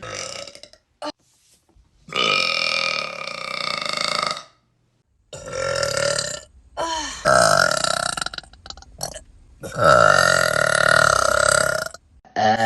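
A young woman burping: four long, drawn-out belches in a row, each one to two and a half seconds long with short pauses between, the last one loudest.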